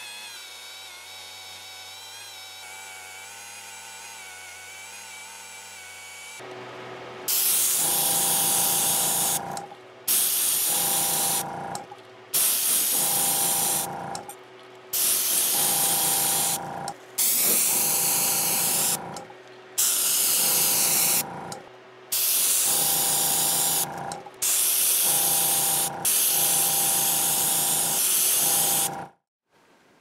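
A handheld rotary tool with an abrasive wheel runs steadily, polishing a brass lock bolt, for about six seconds. Then come about nine loud spray bursts from an aerosol spray can, each lasting one and a half to two seconds with a thin whistle in the hiss and short pauses between them.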